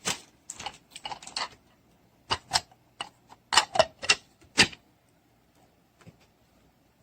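Irregular clicks and clattering knocks in quick clusters, loudest about two and a half to five seconds in, then only a few faint ticks.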